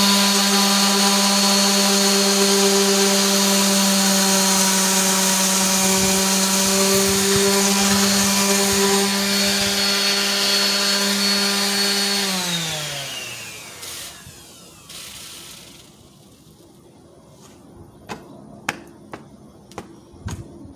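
Bosch random orbit sander running steadily at full speed against the edge of a wooden table top, then switched off about twelve seconds in, its motor winding down in falling pitch. A few light knocks follow near the end.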